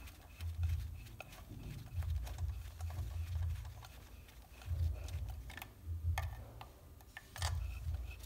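Scattered light metallic clicks and ticks as a compression tester's hose and adapter are handled and moved between spark-plug wells, over uneven low handling rumble.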